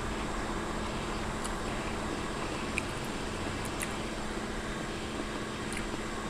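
Steady background noise with a faint hum, with a few faint soft clicks about three and four seconds in.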